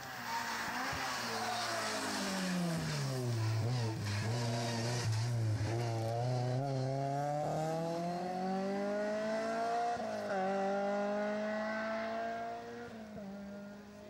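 Race car engine: its pitch falls as the car slows into a bend, stays low for a few seconds, then climbs as it accelerates hard away. There is one upshift about ten seconds in, and the engine note fades as the car draws off near the end.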